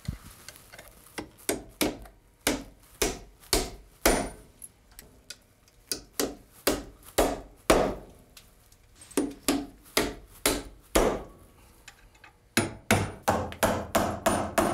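Hammer driving hanger nails through a metal joist hanger into a wooden carrying beam: a series of sharp strikes, about two a second, with a short pause near the end and then a quicker run of blows.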